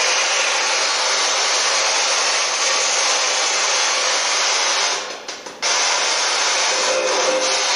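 Loud, steady radio static from a ghost-hunting spirit box sweeping through stations, briefly dipping about five seconds in.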